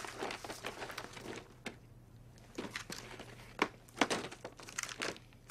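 Plastic packaging crinkling and crackling in irregular bursts of sharp clicks as it is handled and pulled at, with a short quieter pause about two seconds in.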